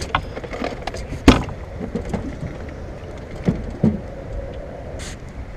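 A few sharp knocks and clunks of gear being handled in a small boat, the loudest about a second in, over steady wind and water noise.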